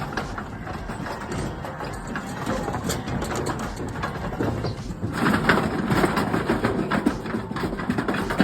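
Sheep being unloaded from a semi truck's livestock trailer: a dense clatter of hooves over the truck's idling engine, growing louder about five seconds in.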